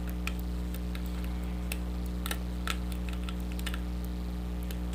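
Irregular small clicks and ticks of a lock pick working the pin stacks of a pin-tumbler lock under a tension wrench, as the picker feels for pins setting into a deep false set. A steady low hum runs underneath.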